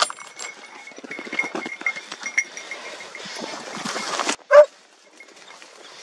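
Hunting dog giving one short, loud bark about four and a half seconds in, after a stretch of rustling and crackling through dry brush. A sharp crack sounds at the very start.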